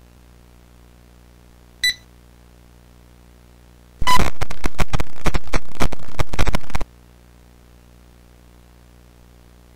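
Horror jumpscare sound effect: a loud, harsh, distorted crackling noise that bursts in at about four seconds, lasts nearly three seconds and cuts off suddenly. Before it comes a short electronic beep, over a faint steady low hum of tape static.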